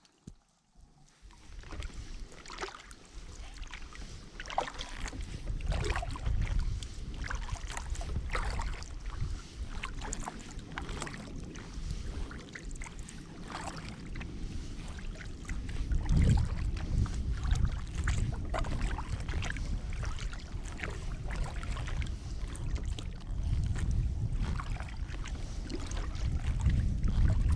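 Kayak paddle strokes dipping and splashing in river water, with drips between strokes, starting about a second in. Wind rumbles on the microphone underneath, with stronger gusts about halfway through and near the end.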